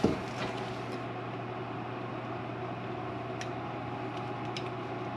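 Steady low hum of a fan or machinery, with a few faint light clicks from brake parts being handled.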